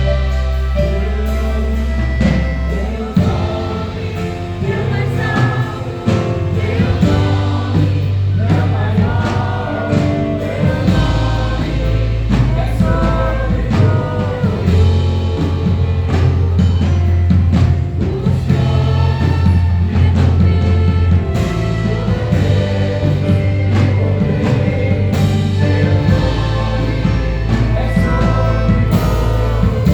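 Church orchestra playing a gospel piece with voices singing, over long held bass notes.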